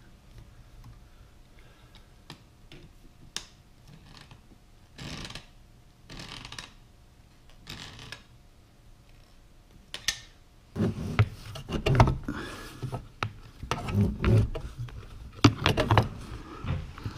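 Hand-tool handling: small clicks and rubbing as slip-joint pliers work the brass fitting on a dishwasher's water inlet valve. About two-thirds of the way through come louder, irregular knocks and scraping as the valve is handled back under the dishwasher.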